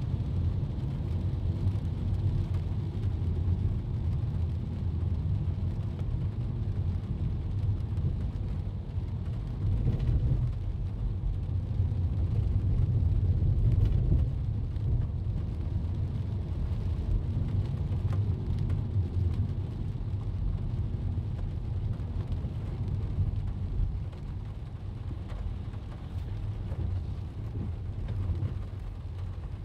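Low, steady rumble of a car's engine and tyres heard from inside the cabin, driving slowly on a wet road, with a faint hiss of rain. The rumble swells for a few seconds around the middle and eases off near the end.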